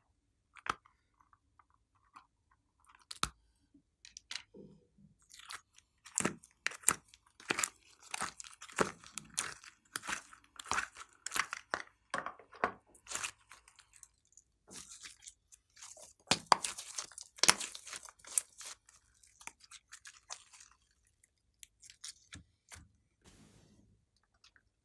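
Glossy slime being squeezed and stretched by hand, giving a rapid run of clicks and squelches. The clicks are sparse at first, come thick and fast through the middle with a short lull about halfway, and thin out near the end.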